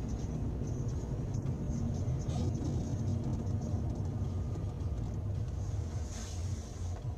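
Steady low rumble of a car's engine and tyres on a snowy road, heard from inside the cabin.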